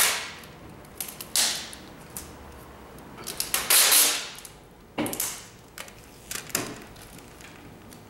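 Clear adhesive tape being pulled off the roll in about five short, noisy strips.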